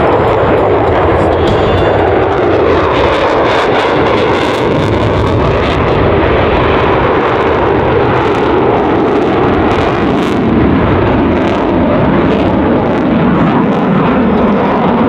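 Lockheed Martin F-22 Raptor's twin Pratt & Whitney F119 turbofan engines running at high power during a display pass: a loud, steady jet noise.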